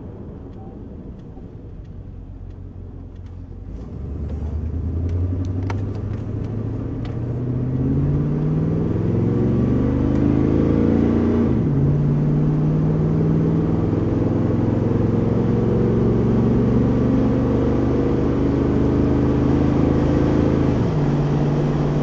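The 1968 Chevelle Nomad wagon's engine, heard from inside the car, runs low at first and then gets louder as the car accelerates about four seconds in. Its pitch climbs steadily and drops sharply twice as the transmission shifts up.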